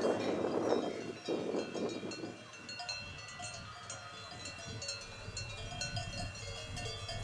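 Several livestock bells clanking irregularly, as from grazing animals moving about. A rushing noise fades out after about two seconds.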